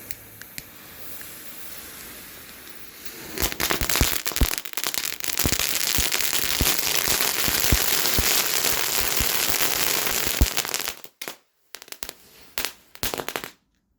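Weco Knatterlunten (crackling fuse strands) hissing as they burn for about three seconds, then going off in dense, loud crackling with many sharp pops. The crackling thins to scattered pops and stops shortly before the end.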